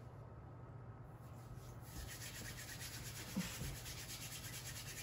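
Faint rubbing noise over a steady low hum, with one soft knock about three and a half seconds in.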